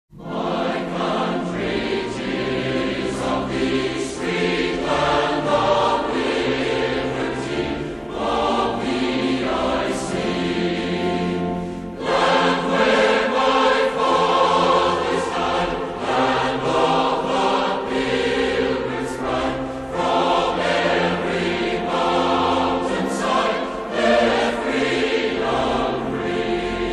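Choral music: a choir singing.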